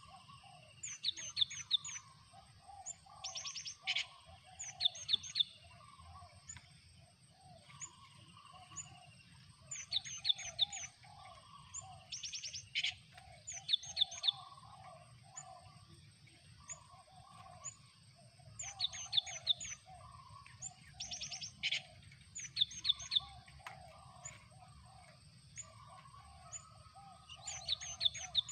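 Gelatik batu (cinereous tit) calling: short runs of rapid high notes every few seconds, over lower chattering bird notes and a thin steady high tone.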